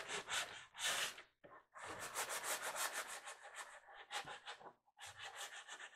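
Sanding block rubbed in quick back-and-forth strokes over a painted wood panel and its edges, scuffing the paint to take the shine off and distress it. The strokes pause briefly about one and a half seconds in and again near five seconds.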